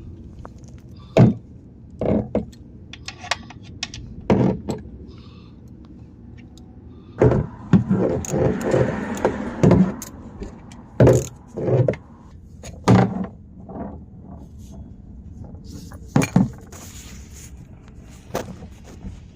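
Scattered metallic clanks and knocks of a ratchet and socket being worked on the 15 mm drain bolt of a car's oil pan, with a denser run of knocks and rattling about seven to ten seconds in.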